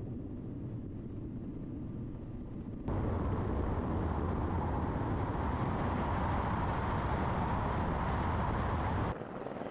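Steady engine-like roar. It steps up abruptly to a louder, hissier level about three seconds in and drops back just as abruptly near the end.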